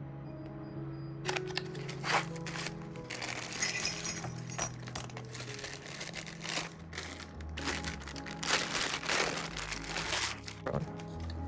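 Background music with a steady bass line, over irregular crinkling and clicking from PC parts and their plastic packaging being handled.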